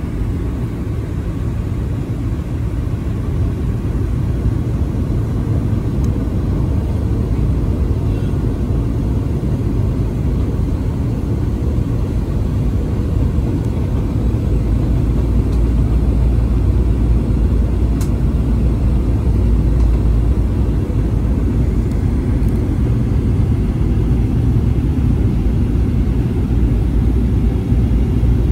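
Cabin noise inside a Boeing 737-900 descending on approach to land: a steady low rumble of engines and airflow, which grows louder and deeper about halfway through.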